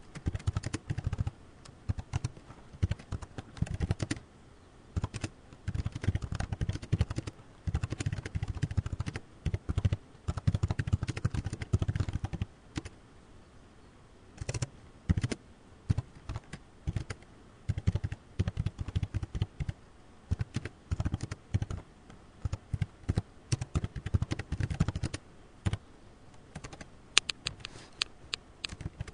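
Typing on a computer keyboard: rapid runs of key clicks in bursts with short pauses, then a few sharper, higher clicks near the end.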